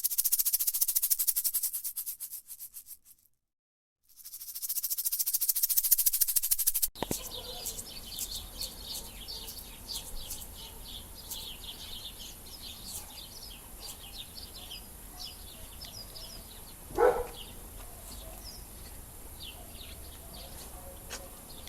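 Two bursts of a fast, high-pitched rattling buzz, then small birds chirping outdoors, with one louder, lower call about seventeen seconds in.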